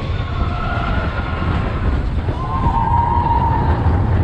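Big Thunder Mountain Railroad mine-train roller coaster running along its track, a loud steady rumble of the cars and wheels. A drawn-out high tone rides over it from about two seconds in to near the end.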